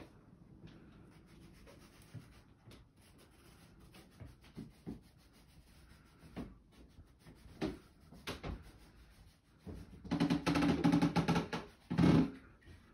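Rubbing and scraping with a few light knocks scattered through. About ten seconds in comes a louder grating scrape lasting nearly two seconds, then a shorter one just after.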